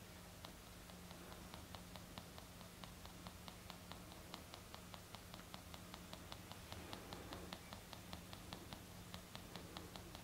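Faint, regular wet clicking a few times a second: a Siamese cat licking with its tongue as it grooms.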